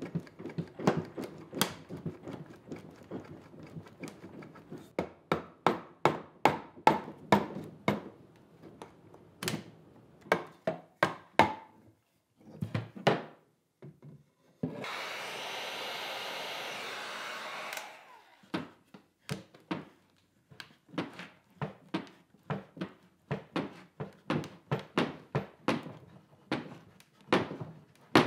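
Irregular wooden knocks and clatter as a loose chair leg joint is worked apart and the wooden chair parts are handled on a wooden workbench. About halfway through, a steady rushing noise lasts about three seconds.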